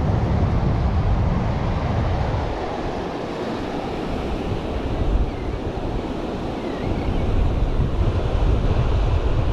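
Wind buffeting the microphone over the steady wash of surf, the gusts rising and easing.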